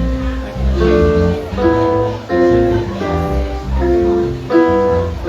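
Live band playing through a PA: strummed guitar chords that change every half second or so over a bass line.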